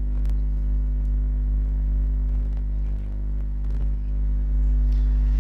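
Steady low electrical mains hum with evenly spaced overtones, and a single faint click just after the start.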